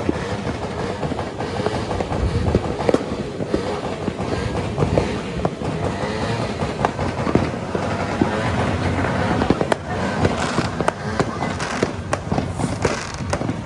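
New Year fireworks and firecrackers going off in a continuous mass of bangs and crackles, with sharp cracks coming thicker in the last few seconds.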